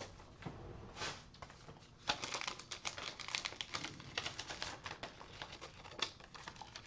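A CD in a paper sleeve being handled: the sleeve rustling and crinkling with a dense run of quick crackles and taps in the middle, and single sharper taps about a second in and near the end.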